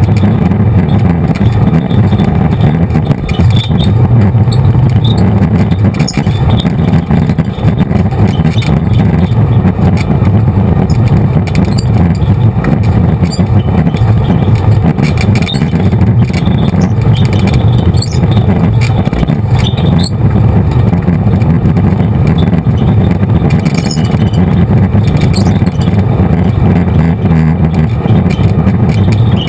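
Off-road vehicle driving along a rough dirt trail: a loud, steady engine drone with scattered rattles and clicks over the bumps.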